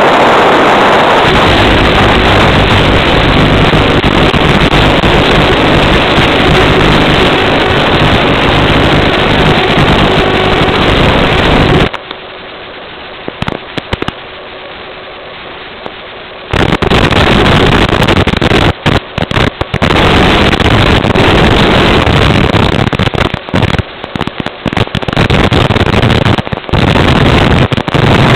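Steady rushing noise of wind and radio static carried over an FPV plane's analog video downlink. It drops away for about four seconds near the middle and then cuts out in short gaps as the video signal breaks up.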